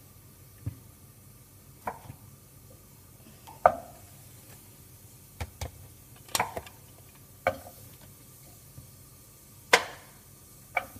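A metal spoon scooping hard ice cream, scraping and knocking against a plastic ice cream tub and a blender cup in irregular clicks and knocks, with the sharpest knocks about four seconds in and near the end. The blender is not running.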